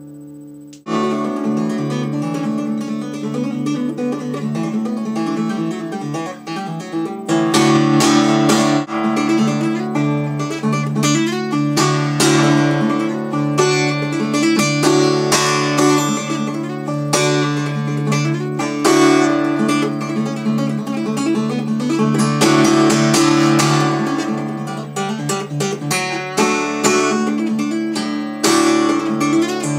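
Solo acoustic guitar in open C tuning, fingerstyle, with low open strings ringing under the melody. The playing starts about a second in and grows louder about seven seconds in, with many quick percussive strikes.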